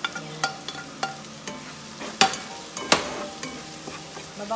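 Garlic, onion, ginger and chilies sizzling in annatto oil in a frying pan while a wooden spatula stirs and scrapes them, with scattered sharp taps of the spatula; the two loudest come a little past two seconds and near three seconds in.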